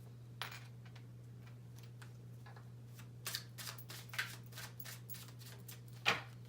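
Tarot cards being shuffled and handled: a run of quick, crisp card flicks in the middle and a louder snap near the end, over a steady low hum.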